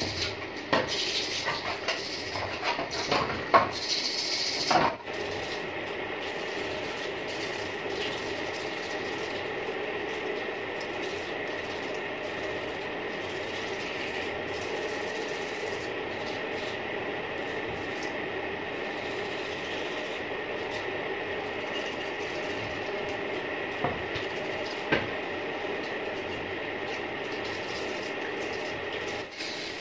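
A metal motorbike wheel hub being scrubbed by hand in a basin of water: splashing and knocks for the first few seconds, then a steady mechanical hum with only a couple of small knocks.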